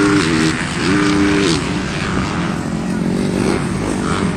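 MX1 motocross bikes running on the dirt track, their engines revving up, holding and dropping back twice early on as riders throttle through a section, over a steady low rumble of other bikes.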